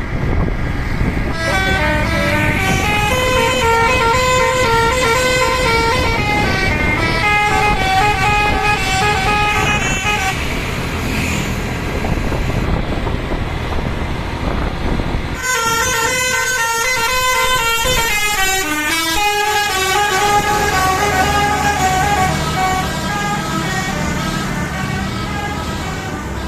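Bus telolet horn, a Basuri multi-tone musical air horn, playing a melody of held notes that step up and down, over the bus engine's low running. The tune breaks off sharply about fifteen seconds in and a new run of notes starts.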